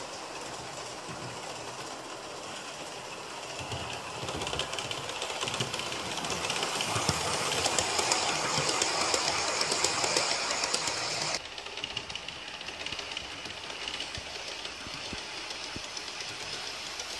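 Bachmann OO-gauge Class 411 model electric multiple unit running on the layout track, its motor and wheels rattling on the rails with a light clicking. The sound swells as the train passes close by, then drops suddenly about eleven seconds in to a quieter, steady run.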